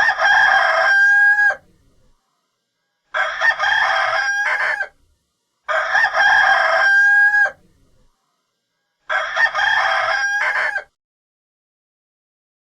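A rooster crowing four times, each crow about a second and a half long and ending on a held note, with dead silence between the crows.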